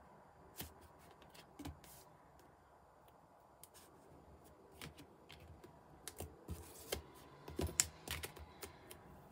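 Light taps, clicks and rustles of card and double-sided tape being handled and pressed down on a craft mat. They are sparse at first and come thicker and sharper in the second half.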